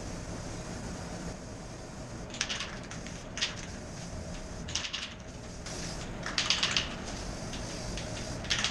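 Aerosol can of Rust-Oleum matte clear enamel hissing in several short bursts as clear coat is sprayed onto the bare metal inside a motorcycle fuel tank to keep it from rusting.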